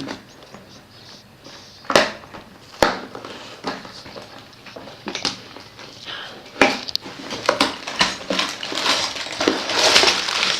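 A cardboard Lego set box being opened by hand: a few sharp snaps as the flaps are torn open, then crinkling and rattling of the plastic bags of bricks inside, busiest near the end.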